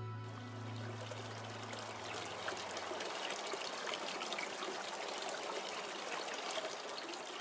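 Water trickling from a culvert pipe into a creek pool, a steady dribble with fine splashing.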